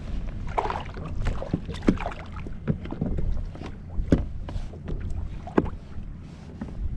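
Wind rumbling on the microphone, with irregular knocks and rattles from fishing gear being handled and packed away on a kayak. The sharpest knocks come about 2, 4 and 5.5 seconds in.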